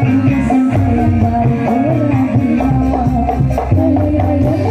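Live dangdut music from an Orkes Melayu band over a PA system: a wavering melody line over bass, drums and hand percussion keeping a steady beat.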